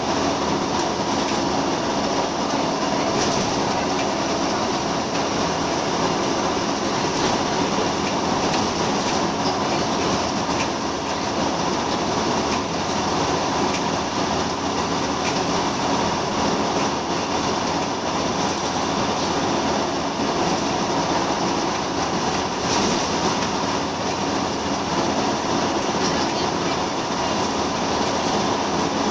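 Inside a Scania L94UB Wright Solar single-deck bus under way: its nine-litre five-cylinder diesel runs steadily, with tyre, road and body noise through the cabin.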